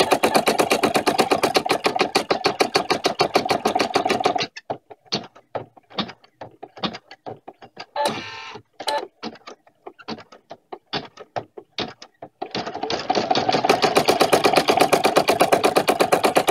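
Embroidery machine stitching through hooped felt and tearaway stabilizer, sewing the puzzle-piece lines and whale outline. For about the first four seconds the needle strokes are rapid and even. They then slow to scattered single strokes, with a short burst of noise about eight seconds in, and pick up again to rapid, steady stitching for the last four seconds.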